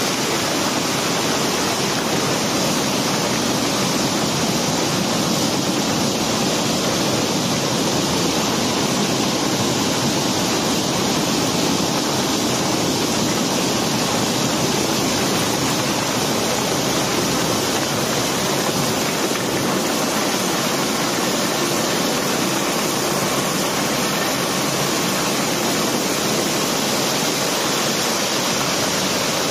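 Rounded cobblestones pouring without pause onto a stockpile as a barge is unloaded: a dense, unbroken stream of stone-on-stone noise at a steady level.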